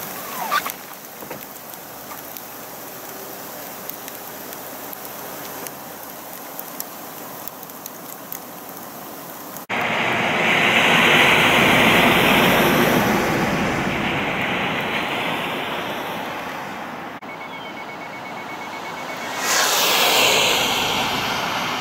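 A soft, steady hiss of freezing rain and sleet falling. After a cut about ten seconds in, much louder tyre and road noise of vehicles passing on a wet highway: one swells and fades away, and a second rises near the end.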